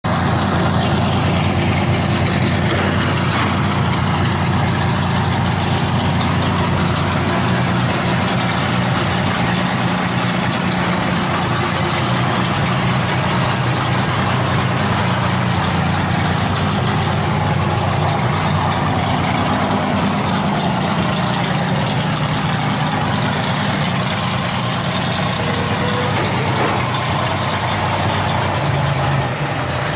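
Large engine idling steadily at an even, unchanging pitch.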